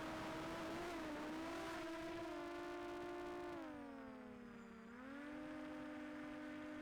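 Quadcopter drone's propellers humming at a steady pitch. The pitch and level sag for about a second and a half midway through, then settle back as the motors change speed.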